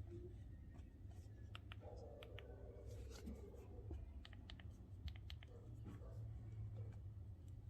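Faint light clicks and taps, a run of them through the middle, with a brief soft scrape, over a steady low hum.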